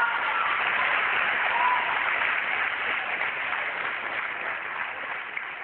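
Audience applauding, slowly fading out.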